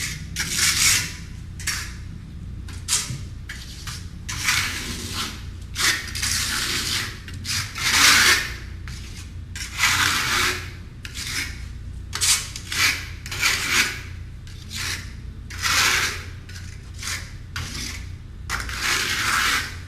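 Trowel spreading a thin coat of Redgard liquid waterproofing membrane over cement board in repeated rubbing, scraping strokes, irregular and roughly one a second. A steady low hum runs underneath.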